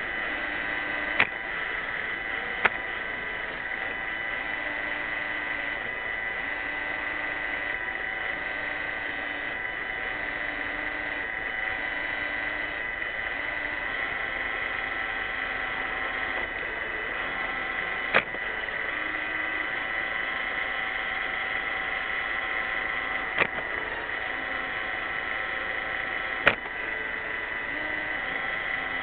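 Roomba 600 robot vacuum running: a steady whine of its motors and brushes, broken by five short, sharp knocks spread through.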